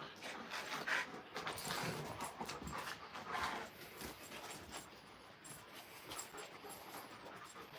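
Alaskan Malamutes making faint panting and small dog noises while wrestling, dying down about halfway through.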